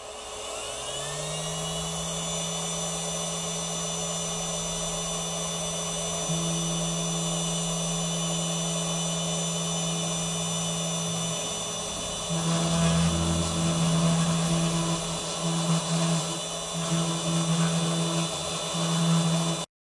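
A 400-watt, 48-volt CNC mill spindle spins up with a rising whine over the first couple of seconds, then runs steadily at speed. About twelve seconds in, the machine's axis motors start moving and the fine 20-degree V-bit begins engraving the copper-clad board. This adds a louder, uneven, pulsing hum over the spindle's whine.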